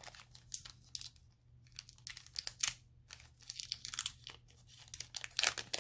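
Foil wrapper of a Pokémon Sun & Moon booster pack crinkling and tearing as it is pulled open by hand, in irregular crackles with short pauses.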